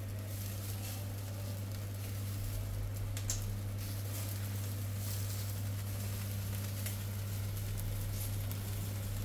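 Whole chickens sizzling on turning rotisserie spits in a gas-fired lava-stone roasting grill, with faint crackles and pops and a steady low hum underneath.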